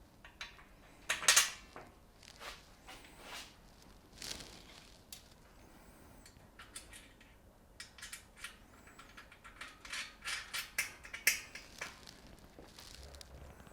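Irregular metal clinks and knocks of bolts, washers and nuts being handled and fitted into a steel welding table frame by hand. The loudest knocks come about a second in and again near eleven seconds.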